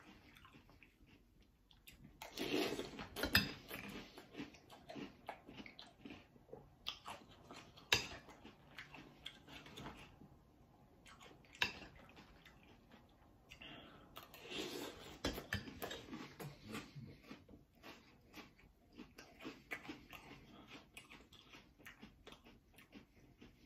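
A person chewing mouthfuls of crunchy Cap'n Crunch's Crunch Berries cereal in milk, with a spoon scooping through the milk and now and then clicking against the glass bowl. The crunching is loudest a couple of seconds in and again around the middle.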